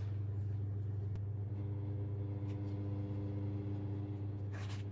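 Steady low hum of a running kitchen appliance, with a second set of steady higher tones joining about a second and a half in, and a few faint clicks near the end.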